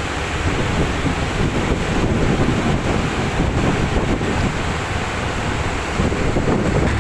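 Wind buffeting the microphone: a rough, steady rumble with no clear machine tone in it.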